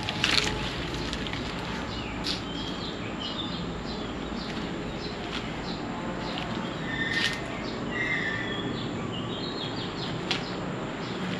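Birds chirping outside, a scattered run of short high calls. A few sharp clicks of footsteps on a debris-strewn concrete floor are heard among the calls.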